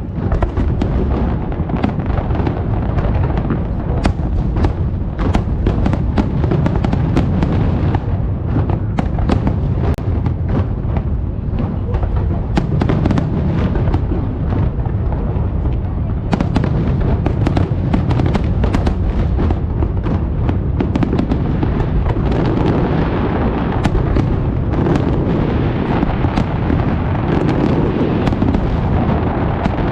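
Dense fireworks barrage: aerial shells bursting in rapid, overlapping booms and sharp cracks over a continuous low rumble.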